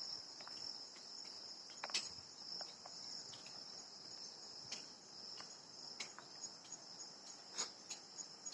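Insects trilling steadily at a high pitch, with a few sharp clicks scattered through, the loudest about two seconds in.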